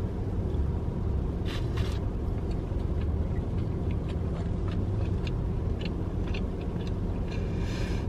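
Steady low rumble of an idling car engine heard inside the cabin, with faint wet clicks and smacks of someone chewing a mouthful of burger over it, and a short hiss near the end.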